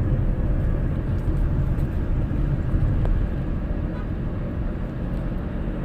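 Steady engine and road noise heard inside the cabin of a small car driving along, with a few faint clicks.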